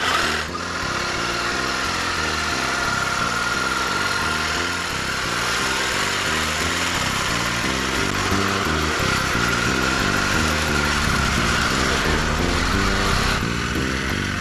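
STIHL HSA 50 battery-powered hedge trimmer running as it cuts a hedge: a steady electric-motor whine over the buzz of the reciprocating blades. It starts abruptly and drops off shortly before the end.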